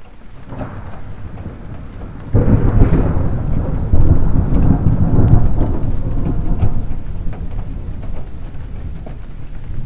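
Heavy rain pattering on a car's windows and roof, with a deep rolling rumble of thunder that breaks in suddenly about two seconds in, swells again a moment later and slowly dies away.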